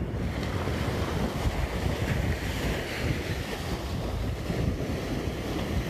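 Ocean waves washing and breaking around a swimmer, with wind buffeting the phone's microphone as an uneven low rumble.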